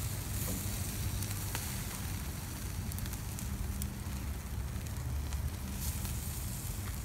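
Charcoal burning down in an open grill, a steady hiss with a few faint crackles over a low rumble.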